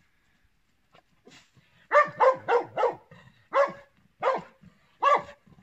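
Search and rescue dog barking from about two seconds in, seven barks in all: a quick run of four, then three more at slower, even intervals. This is the dog's bark alert, signalling a hidden victim it has found in the rubble.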